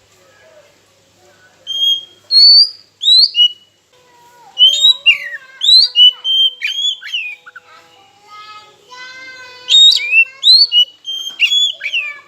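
Oriental magpie-robin (kacer) singing: loud, clear whistled notes and sweeping slurs in short phrases, with a lower, buzzier run of rapid notes about eight seconds in before the whistles resume.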